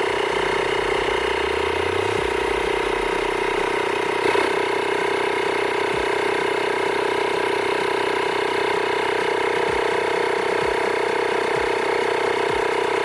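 A Honda tyre-repair-kit 12 V air compressor runs with a steady, even hum, powered through its newly replaced wire, so the repair works. There is one brief knock about four seconds in.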